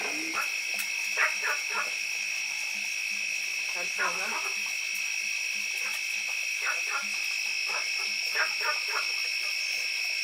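Steady high-pitched insect chorus of crickets trilling without a break. Short croaking calls from frogs break in every second or two.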